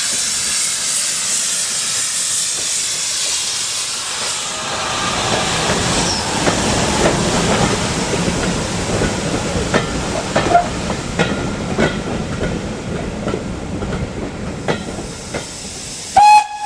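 Steam hissing from a departing double-headed steam train, then its coaches rolling past, wheels clicking over the rail joints. Near the end, after a sudden loud burst, a steam locomotive whistle begins to sound.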